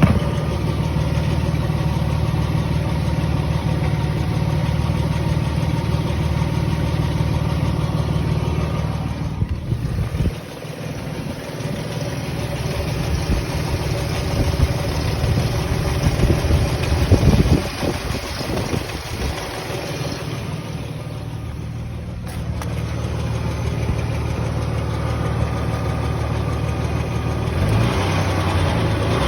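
2003 Nissan Xterra's 3.3-litre V6, non-supercharged, running with a ticking noise. The sound drops in level about a third of the way through and turns rougher and more uneven a little past the middle.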